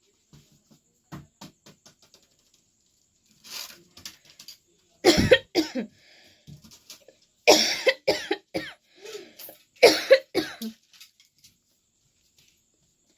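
A person coughing in short bouts: a few faint coughs in the first few seconds, then three loud bouts about five, seven and a half and ten seconds in.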